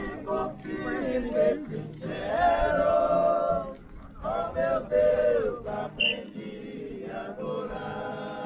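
A group of voices singing a devotional hymn together, unaccompanied, in long held notes that rise and fall.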